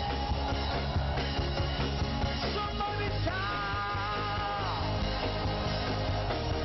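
Praise and worship music: a band with a steady beat, and a voice holding a long sung note with vibrato about halfway through.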